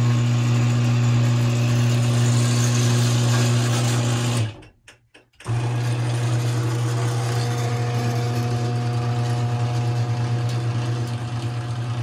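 Craftsman 139.53989 garage door opener motor running with a steady hum as it drives the door. It cuts out abruptly for about a second near the middle, then starts again and runs on.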